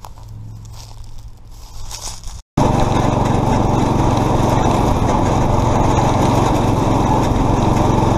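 Faint low sound for about two and a half seconds, then an abrupt cut to the loud, steady running engine of a riding lawn mower being driven.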